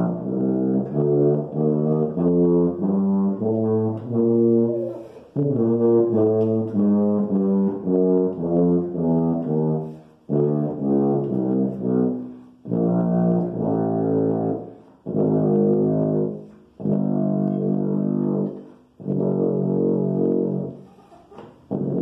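B-M B-flat tuba, a copy of the Yamaha 104, played in scales: two quick runs of stepped notes, then a shorter run and four long held notes with breaths between them.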